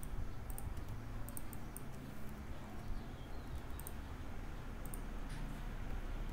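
A handful of sharp computer mouse and keyboard clicks, spread irregularly over several seconds, over a steady low background hum.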